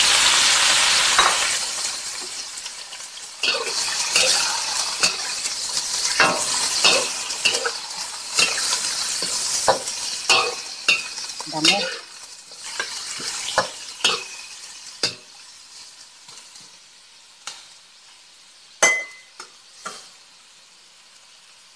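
Parboiled duck pieces sizzling loudly as they hit hot sesame oil in a wok, then being stirred, with repeated scraping knocks of a utensil against the wok. The sizzle is loudest at the start and dies down to a faint hiss over the next dozen seconds.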